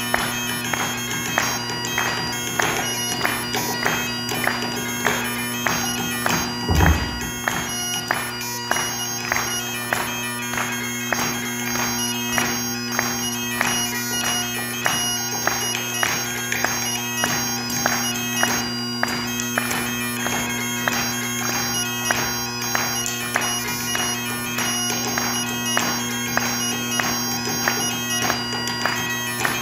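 Bagpipes playing a tune with quick, ornamented melody notes over two steady drones an octave apart. There is a single low thump about seven seconds in.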